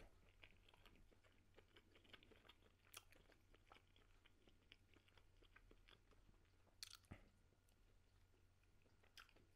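Very faint chewing of a hot dog: soft wet mouth clicks with a few sharper clicks spread through.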